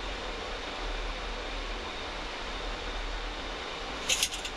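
Steady rushing hiss of airflow and air conditioning on a Boeing 737 flight deck on approach, over a low hum. About four seconds in, a brief rattle of several sharp clicks.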